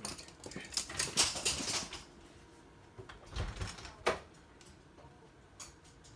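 Toy poodles scuffling in play: a quick run of clicks and scrapes in the first two seconds, a dull thump about three and a half seconds in, and a single sharp click just after it.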